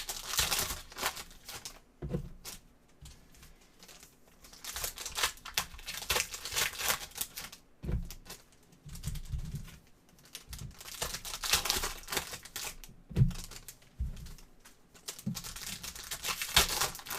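Plastic wrapping crinkling and tearing as a box of trading cards is opened, in four spells of rustling with a few soft knocks of handling between them.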